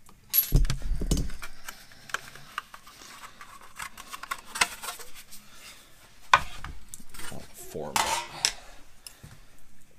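Sheet aluminium and metal tools being handled at a workbench: a sharp metallic clatter about half a second in, scattered clinks and rubbing, and more clattering about six and eight seconds in.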